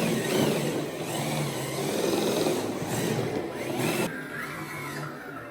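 A Tamiya CC-01 RC truck's brushless electric motor and geartrain whining, the pitch rising and falling several times as the truck speeds up and slows.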